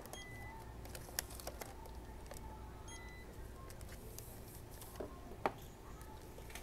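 Quiet checkout-counter sounds: scattered clicks and taps, the sharpest about a second in and about five and a half seconds in, with two short faint beeps over a steady low hum.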